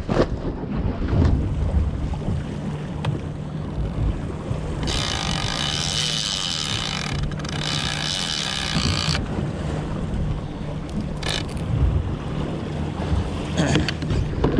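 Low, steady rumble of a boat's outboard engines at trolling speed, with wind on the microphone and water washing against the hull. About five seconds in, a loud hissing buzz comes in for about four seconds, with a short break in the middle.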